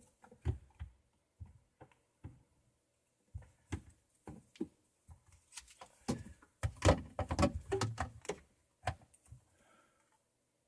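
Irregular clicks and knocks of PVC shutoff valve parts and pipe fittings being handled and fitted by hand, busiest a little past the middle.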